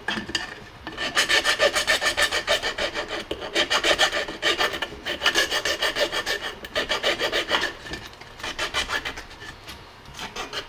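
Hand file scraping back and forth over a 3D-printed plastic part in quick, repeated strokes, smoothing down rough spots on the print. The strokes pause briefly about halfway through and go quieter near the end.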